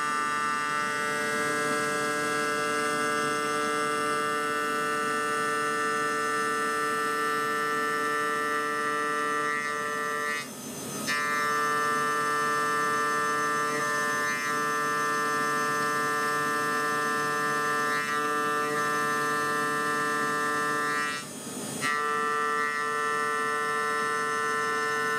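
High-speed spindle of a homemade CNC milling machine running with a steady, many-toned whine while a chamfer cutter mills along the edge of a pocket in the metal plate. The sound drops away briefly twice, once near the middle and once near the end.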